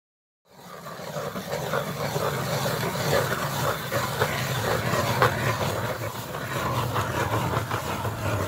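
Hand-cranked ice auger drilling into lake ice: the blades scrape and crunch steadily through ice and slush, starting about half a second in.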